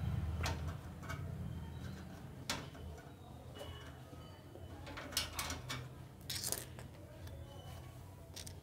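Scattered small clicks and knocks of hands working on parts inside a desktop PC case while the graphics card is being taken out, about six in all, over a low steady hum.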